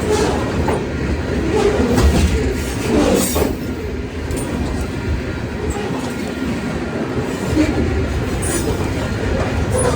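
Railway cars of a passing train rolling by, wheels clacking over the rail joints with a steady rumble.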